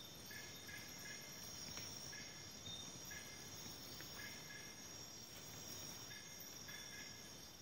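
Night forest insect chorus, a steady high buzzing, with another animal's short two-pitched call repeating about once a second, sometimes twice in quick succession. A couple of faint clicks come through as well.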